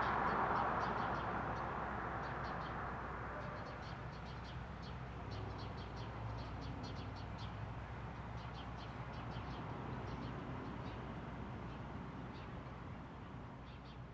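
Roadside ambience: a passing vehicle fading away over the first few seconds, then a steady low traffic rumble with small birds chirping in quick short calls. It all fades out near the end.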